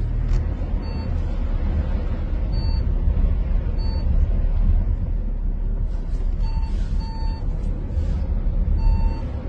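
A vehicle's electronic warning beep sounding about seven times at uneven intervals over a loud, steady low rumble.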